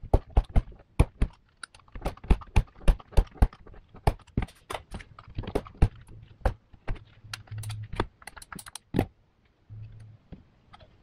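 Hand-held aviation tin snips cutting around the thin steel can of a used Mobil 1 oil filter: a steady run of sharp metallic snips, two to three a second, that stops about nine seconds in.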